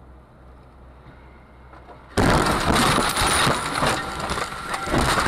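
A car crash recorded from inside the dashcam car. Low road hum gives way, about two seconds in, to a sudden loud impact, followed by continuous loud crunching and knocking as the car runs off the road onto the verge.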